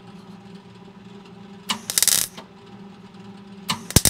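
MIG welder laying two short tack welds on a steel sill patch plate: two sharp crackling bursts of under a second each, about two seconds in and again near the end, over a steady low hum. The welds are kept this short to limit heat, so the new panel doesn't distort or burn through.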